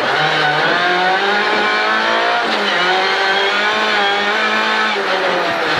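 Rally car engine under hard acceleration, heard from inside the cabin. The engine note climbs, drops sharply at a gear change about two and a half seconds in, then climbs again. Gravel and tyre noise from the dirt track runs beneath it.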